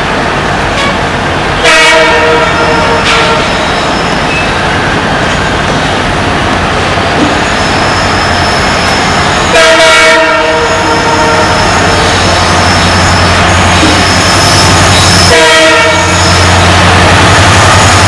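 WDP-4 diesel locomotive approaching with its engine and wheels rumbling, sounding three short horn blasts, about 2, 10 and 15 seconds in. Its engine hum grows louder in the second half as it draws near.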